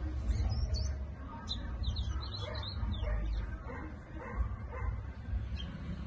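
Caged towa towa (chestnut-bellied seed finch) singing short, quick chirping and warbling phrases, once near the start and again from about one and a half to three seconds in, with dogs barking in the background.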